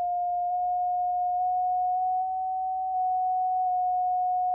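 CW sidetone from a ham transceiver, a single pure tone of about 700 cycles, playing through an MFJ-281 ClearTone speaker set in a small wooden box. The pitch is stepped up a little at a time while hunting for the box's resonance, and the tone gets slightly quieter where it is highest, a little after two seconds in.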